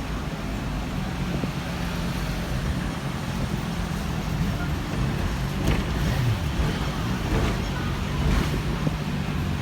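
Steady running noise on board a Hong Kong double-decker tram moving through city traffic, with a low steady hum throughout and a few faint clicks.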